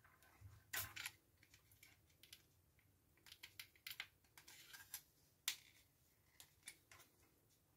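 Faint, scattered clicks and taps of a soundbar's plastic housing and small control board being handled, with sharper clicks about a second in and again past the middle.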